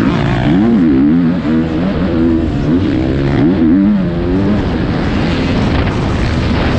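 Motocross bike engine racing, its pitch rising and falling again and again as the throttle is opened and closed.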